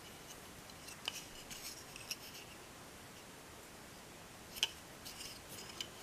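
Faint, scattered clicks and light rubbing of a small plastic model display panel being turned over in the fingers, with a sharper click about four and a half seconds in.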